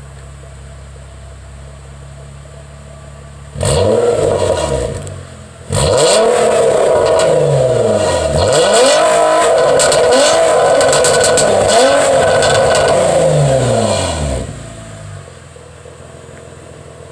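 Nissan Maxima 3.5-litre V6 running through a true dual 2.25-inch exhaust with DNA mufflers: idling, then revved hard once about three and a half seconds in, then revved repeatedly for about nine seconds, the pitch rising and falling with each rev, before settling back to idle.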